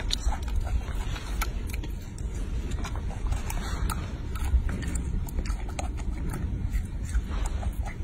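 A young macaque biting and chewing longan fruit, with small irregular clicks and crunches, over a steady low rumble.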